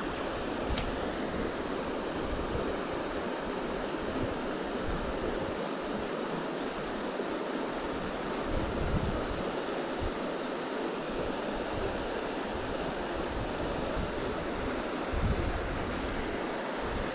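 Steady rush of flowing river water, with wind buffeting the microphone in irregular low gusts.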